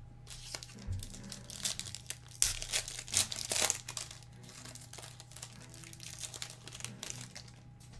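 Plastic trading-card pack wrapper crinkling and tearing as a pack is opened, in irregular rustles that are loudest in the first half and then give way to lighter handling.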